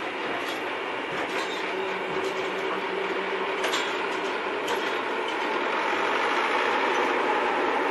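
The GEnx-2B turbofan engines of a Boeing 747-8 freighter running up for takeoff: a steady jet roar with a low hum and a higher whine, slowly growing louder. A couple of sharp clicks sound about halfway through.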